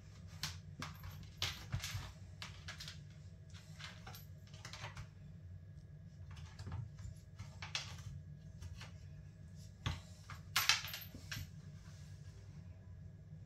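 Cat scrabbling about inside a plastic laundry basket and tugging a plush toy through its holes: scattered light scratches, taps and rustles of no steady rhythm, the loudest burst about eleven seconds in. A low steady hum runs underneath.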